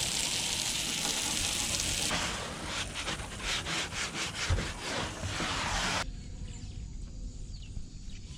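A brush scrubbing a dirty boat deck: a steady hiss for about two seconds, then rhythmic back-and-forth strokes at about three a second that stop abruptly about six seconds in. A quiet background with faint bird chirps follows.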